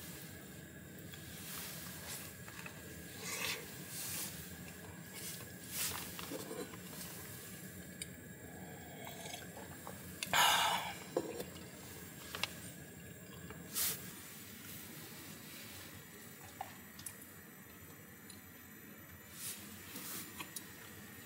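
Soft squishy handling and eating sounds as a toasted bun filled with red bean paste is pulled apart and bitten, over a steady faint hiss. A brief louder rustle comes about halfway through.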